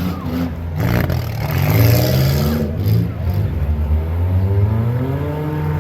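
Several demolition derby car engines revving and accelerating, their pitch rising and falling, with a bang about a second in.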